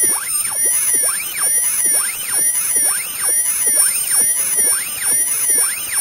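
Homemade dog-bark-deterrent sound cannon: a tweeter firing down a PVC pipe, driven by a tone generator at level 3.5. It blares a dense tangle of high tones that sweep rapidly up and down several times a second, over a shrill warbling whistle high above, without let-up.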